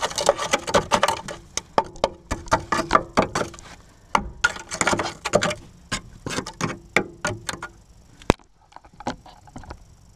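Irregular, rapid clicking and knocking of metal being worked by hand, thinning out to a few scattered clicks near the end.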